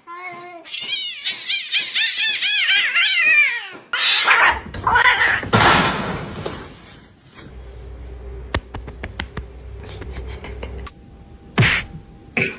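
A cat crying in a quick run of short rising-and-falling calls for about four seconds. Then comes a loud, noisy scuffle-like stretch, followed by quieter scattered knocks and one sharp click near the end.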